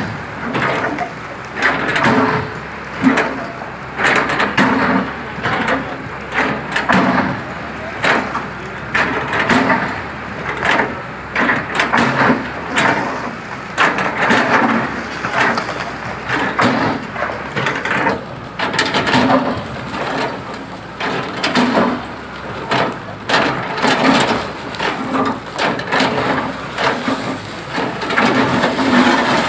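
A hydraulic excavator breaking up a brick and concrete building: repeated cracks and crashes of masonry breaking away and rubble falling onto the pile, with the machine running underneath.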